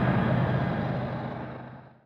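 Diesel freight locomotive engine running with a steady low rumble, fading out near the end.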